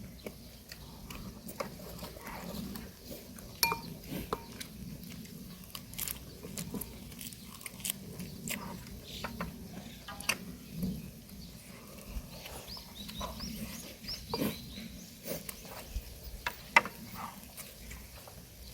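Close-up chewing and mouth sounds of people eating, with frequent sharp clicks of chopsticks and utensils against dishes.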